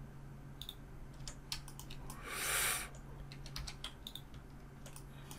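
Computer keyboard keys and mouse buttons clicking in scattered, irregular taps, with a short hiss about halfway through and a faint steady hum underneath.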